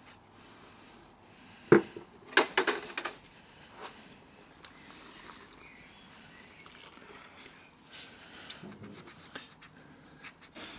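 Tools and metal parts being handled: one sharp knock about two seconds in, a quick run of clinks and clatter right after, then scattered small clicks and rustling.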